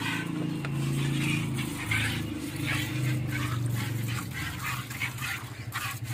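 Hand-milking: short hissing squirts of milk hitting a steel pail, roughly one or two a second. A steady low drone runs underneath.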